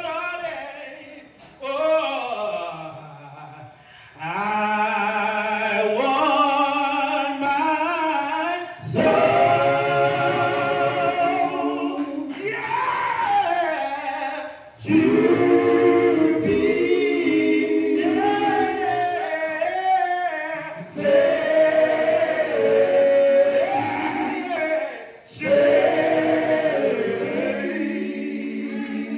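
Male gospel vocal trio singing a cappella in close harmony through a stage PA, in long swelling phrases with short pauses between them.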